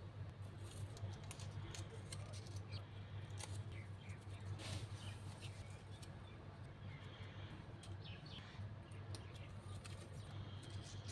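Faint handling of paper and cardboard: scattered small clicks and rustles as paper petal pieces are set into toilet-roll rings, over a steady low hum.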